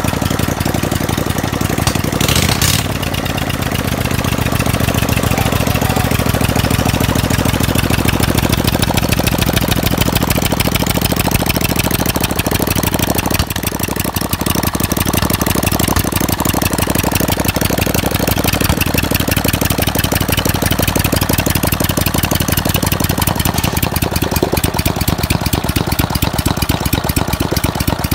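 Briggs & Stratton Vanguard 14 hp V-twin OHV engine running steadily on test after repair. There is a brief sharp noise about two and a half seconds in.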